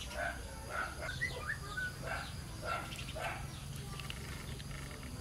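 Birds calling outdoors: a run of short calls about twice a second, with a few quick chirps in the middle, over a steady low hum.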